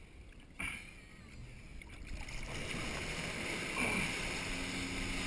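Water rushing around a wakeboard as the rider is towed up behind a boat, swelling from about two seconds in, with a steady low engine hum coming in near the end. A short knock or splash sounds about half a second in.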